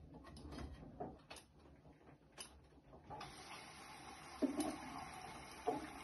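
Bosch front-loading washing machine: a few clicks and knocks from the turning drum. About three seconds in, a steady rush of water starts as the machine fills, with a couple of louder thumps after it.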